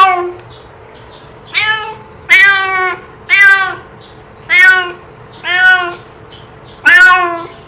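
Domestic cat meowing repeatedly, about six loud calls each roughly half a second long, with a call every second or so.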